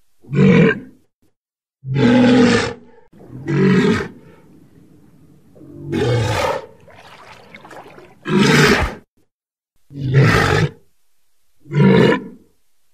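Walrus calling: seven short, low-pitched calls, each under a second, repeating about every one and a half to two seconds, with a longer gap about halfway through.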